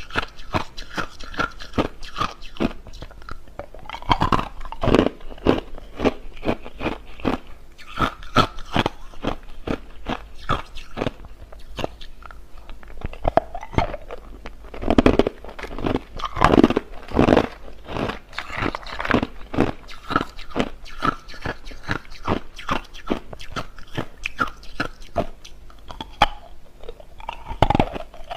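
A person biting and chewing hard, clear crushed ice, a close run of irregular crunches and cracks with louder bites now and then.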